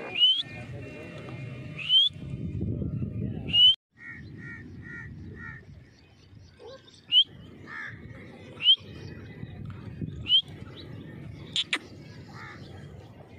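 Grey francolin calling: loud, sharp rising calls repeated about every one and a half seconds. About four seconds in there is a run of five short, lower notes instead. A low rumbling haze sits under the calls.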